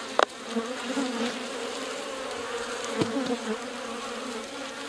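Honeybees buzzing close by as they pour out of the freshly opened entrance flap of a plastic nuc box, a steady, wavering hum. Two sharp clicks break in, one just after the start and one about three seconds in.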